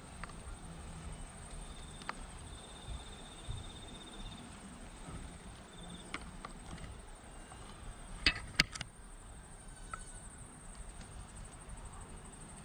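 Steady high-pitched insect chirring, with a few sharp clicks, the loudest two close together past the middle.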